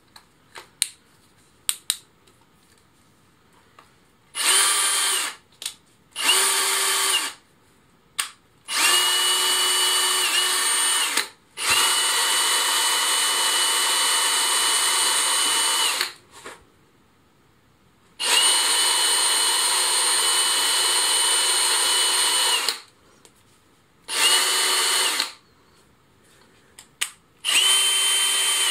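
Aldi Workzone Titanium+ cordless drill running free with no load in seven trigger pulls of about one to four seconds each. The motor's steady whine spins up and winds down with each pull, and a few light clicks come before the first run.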